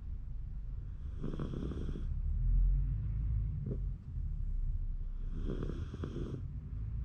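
Shiba Inu snoring in its sleep: two snores, each about a second long and about four seconds apart, over a low steady rumble.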